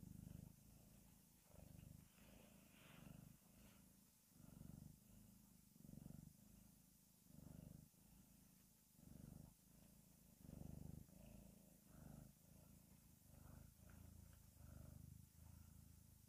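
Domestic cat purring softly while being stroked, in steady swells about every second and a half as it breathes in and out.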